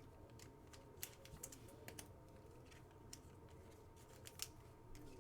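Faint, scattered clicks and scrapes of trading cards being handled and shuffled through on a table, over quiet room tone.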